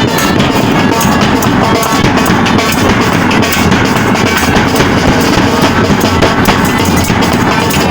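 Loud music with drums and a steady beat.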